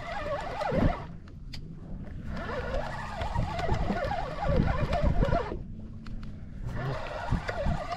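Spinning reel being cranked in spurts, its gears whirring with a pitch that wavers as the cranking speeds up and slows, stopping briefly twice. A steady low hum runs underneath.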